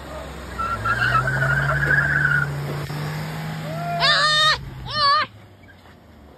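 Mahindra Bolero's diesel engine pulling away under load, a steady low hum that rises slightly, with tyres scrubbing on brick paving for a second or so early on. Near the end come two loud, high-pitched wavering calls about a second apart.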